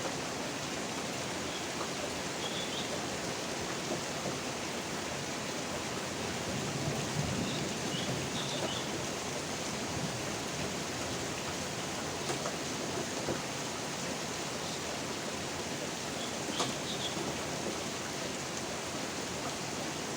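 Steady rain falling, an even hiss, with a few sharp drip-like clicks and some faint short high chirps here and there.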